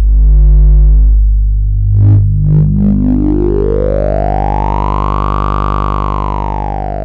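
Electronic drone music: a deep, steady bass tone, loudest in the first second, with a bright tone that sweeps slowly up in pitch and back down over the last few seconds.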